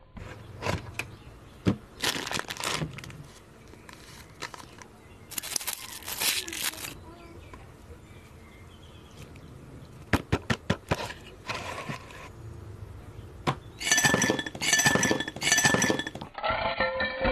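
Close-miked eating sounds: sharp wet clicks, smacks and crackles of chewing noodles and shrimp. Near the end come louder ringing clinks and cracks of ice in a glass.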